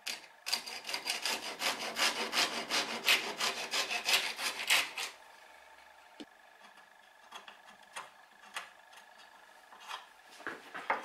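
Small hand saw cutting through the end of a wooden plane wedge in quick short strokes, stopping about five seconds in. A few light taps and clicks follow, with a short scrape near the end.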